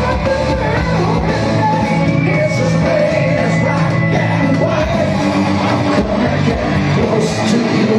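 Live rock band playing loudly, with a male lead singer singing into a microphone over guitar and drums.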